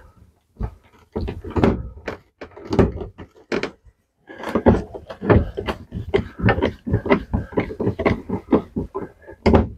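A screw being turned by hand with a screwdriver into a plastic shower-head wall bracket: a run of short, irregular creaks and scrapes, sparse at first and coming thick and fast over the second half as the screw is tightened.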